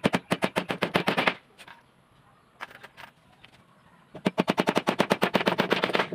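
Hammer striking in quick succession on a wooden strip laid on a plywood panel, fastening the strip: two fast runs of about ten sharp taps a second, the first lasting just over a second, the second starting about four seconds in, with a few scattered taps between.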